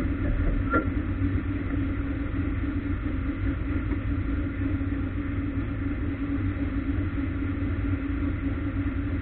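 Ministock race car's engine heard from inside the car, running at low, even revs with a steady rumble and no revving.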